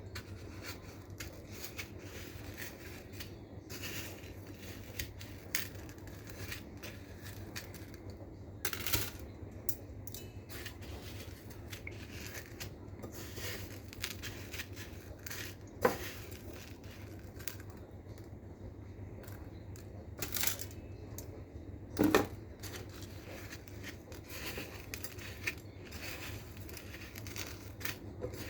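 Kitchen handling noises: scattered light clicks and taps with a few louder knocks, the loudest about three-quarters of the way through, over a steady low hum.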